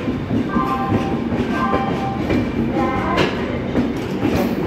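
Indian Railways passenger coaches rolling past a platform: a steady rumble of steel wheels on the rails with some clickety-clack over the joints and a few short high tones.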